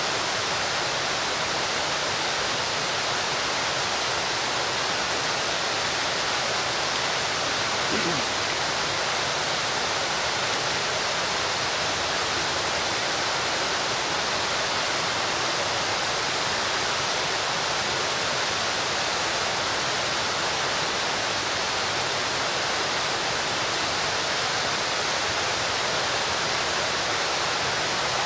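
Large fountain's water pouring from its raised basin into the pool below: a steady, unbroken splashing rush.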